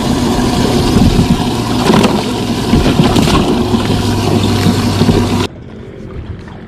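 Bass boat's outboard motor running with the boat under way, heavy wind and water noise over the engine's steady hum. The sound cuts off suddenly about five and a half seconds in, leaving a much quieter background.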